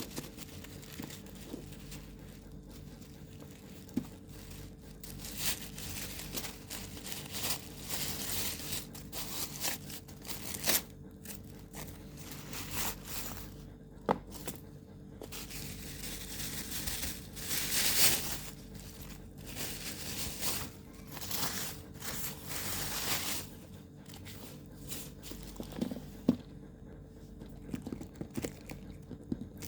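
Packaging being crinkled and torn open by hand, in irregular bursts of rustling with a few sharp clicks and taps.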